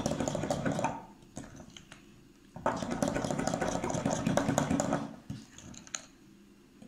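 A fork stirring a thick hung-curd mixture in a glass bowl, scraping and clicking against the glass in two spells: one ending about a second in, the other starting a little under three seconds in and lasting about two and a half seconds.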